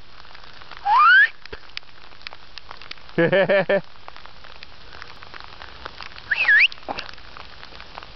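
Hail falling hard, a steady hiss with scattered sharp ticks of hailstones striking. Over it come three short, louder pitched sounds: a rising squeal about a second in, a low pulsing sound of four quick beats about three seconds in, and a curving squeal near six and a half seconds.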